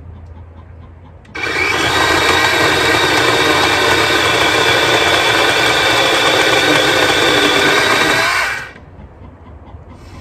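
DeWalt 20V MAX XR compact 12-inch cordless chainsaw starting abruptly about a second in and running with a steady whine as it cuts through a small log, for about seven seconds, then winding down quickly.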